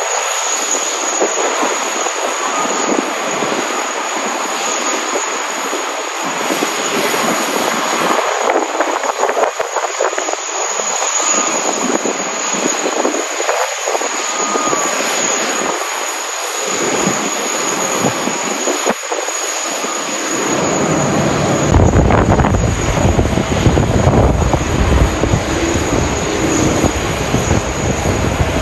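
Boeing 777-300ER jet engines running with a steady rush. About 21 seconds in, a deep rumble joins and the sound gets louder.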